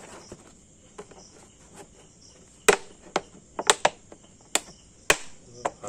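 Sharp clicks and crackles of a thin, ribbed plastic jar being gripped and pressed by hands, a scattering of them in the second half, over faint, steady chirping of crickets.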